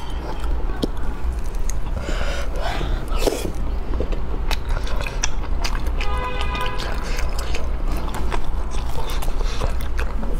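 Close-miked chewing and sucking of spicy stir-fried sea snails, with scattered wet clicks and smacks. A brief pitched hum sounds about six seconds in. A steady low hum runs underneath.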